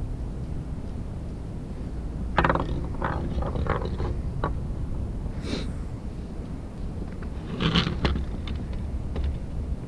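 Steady wind rumble on the microphone, with knocks, scrapes and clicks of plastic fishing tackle handled on a wooden table. The loudest come about two and a half seconds in and again near the end, as a plastic tackle box is opened.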